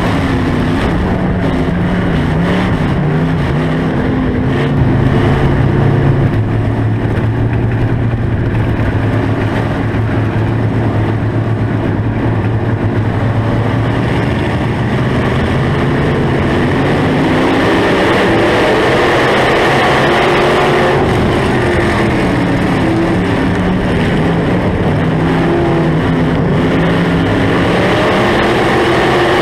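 Onboard sound of a dirt-track SportMod race car's V8 engine at racing speed. The engine note rises and falls as the throttle is worked through the turns, holds lower and steadier for a stretch early on, then swells and dips again, over a constant rush of noise.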